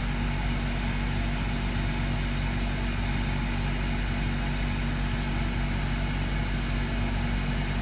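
Steady mechanical hum with constant low tones, unchanging throughout, like an idling engine or running machinery.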